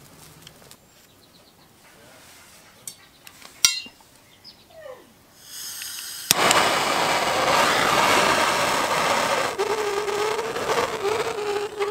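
Hand-held propane torch being lit: gas starts to hiss, a click lights it about six seconds in, and the flame then burns with a steady loud rush, a low steady note coming into it near the end. Before that, light handling clicks and one sharp knock.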